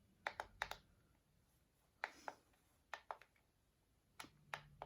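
Faint clicks of buttons being pressed on an Eton Zoneguard weather radio, a few quick presses at a time with short pauses between, over near silence.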